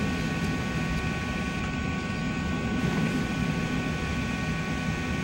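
Steady airliner cabin noise heard through the fuselage: a low rumble of the aircraft's engines and air systems with a few steady high whining tones.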